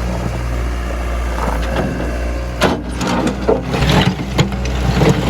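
Vehicle engine idling steadily under a run of sharp knocks and clattering, like wood and junk being thrown down, with the loudest knocks in the second half.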